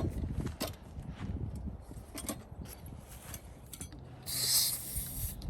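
Hand pumping work on the car: scattered mechanical clicks and knocks, then a hiss about a second long a little past four seconds in.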